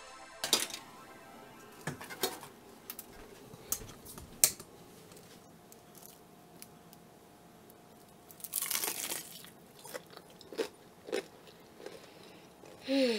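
Crisp crunching and chewing of a battered, deep-fried onion petal, heard as scattered sharp crunches with a louder burst of them about nine seconds in.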